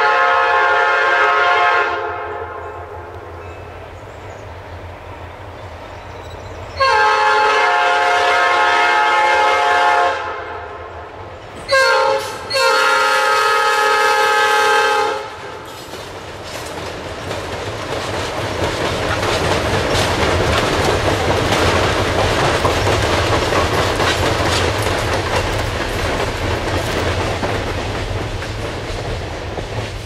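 Multi-chime diesel locomotive air horn blown in several long blasts with one short toot, sounded for an FRA horn loudness test. Then a consist of seven coupled ALCo diesel locomotives runs past, its engine rumble and wheel clatter over the rail joints building and slowly fading.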